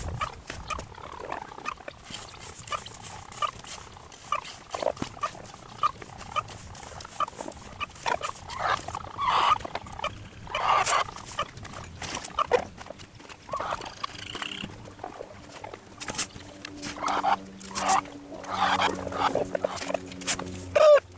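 Chickens clucking and calling in short, irregular bursts, with scattered clicks and knocks among them.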